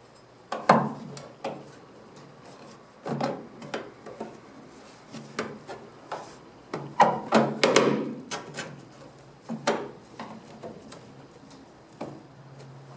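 Irregular knocks, clicks and scrapes of tools and metal parts being handled at a workbench, with a cluster of quick knocks about seven to eight seconds in, over an intermittent low hum.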